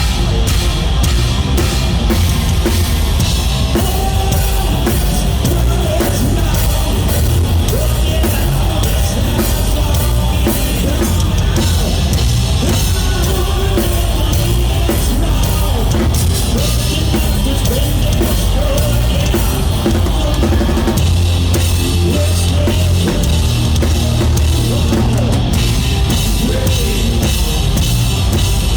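Live rock band playing loud: a drum kit, with electric guitars and bass guitar.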